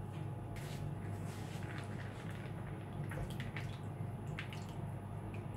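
Wet ground beans being scooped by hand out of a food processor bowl into a plastic bowl: scattered soft squelches and light taps over a low steady hum.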